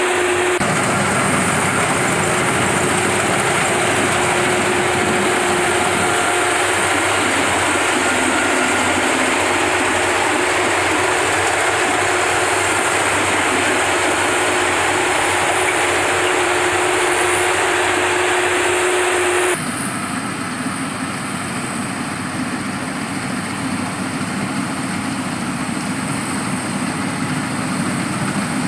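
Engine of a rice harvesting machine running steadily with a constant hum. About two-thirds of the way through the sound changes abruptly to a lower, rougher engine note.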